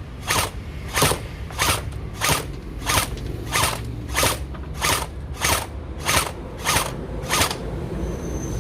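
AK-47-pattern AEG blaster firing single shots in a steady rhythm, about a dozen sharp gearbox snaps roughly one and a half per second, stopping shortly before the end.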